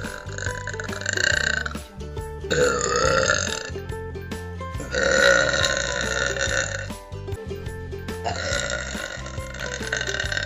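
A person belching a series of long, drawn-out burps, four in all, each lasting one to two seconds, over background music with a steady beat.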